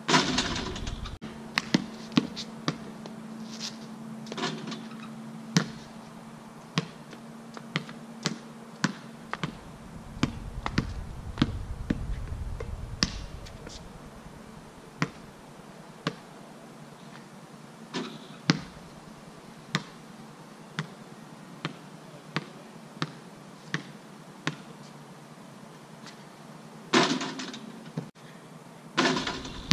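Basketball bouncing on a stone patio: many separate sharp bounces at uneven intervals. There is a louder bang that rings on at the very start, and two more near the end.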